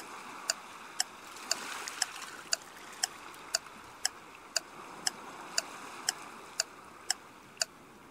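Countdown-timer ticking sound effect: sharp clock-like ticks about two per second, evenly spaced, over a faint steady hiss.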